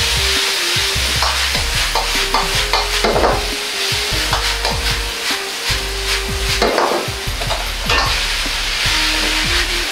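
Spaghetti, cherry tomatoes and pasta cooking water sizzling in a wok over a high gas flame. A metal ladle stirs and tosses the pasta, scraping and clicking against the wok many times.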